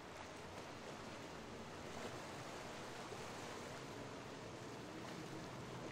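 Steady wash of waves and surf with wind noise, under a faint low hum of boat engines.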